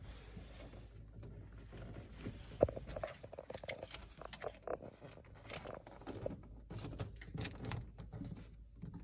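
Irregular scratching, scrabbling and tapping of a young raccoon's claws on window glass as it climbs, with one sharper knock about two and a half seconds in.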